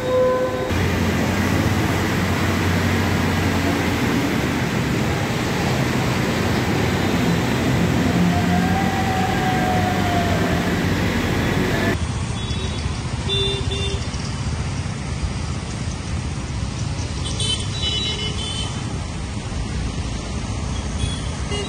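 Heavy rain with road traffic on a flooded street: a dense, steady hiss over a low engine rumble. About twelve seconds in it gives way to a quieter street where vehicles drive through standing water, with a few brief high beeps.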